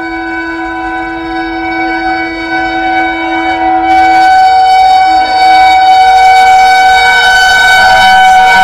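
WAP-7 electric locomotive's horn sounding one long continuous blast of several steady tones. It grows louder as the train approaches, reaching full loudness about four seconds in, when its lowest tone drops out.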